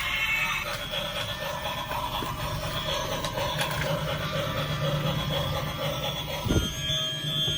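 Battery-powered toy train running steadily on plastic track, with one knock about six and a half seconds in.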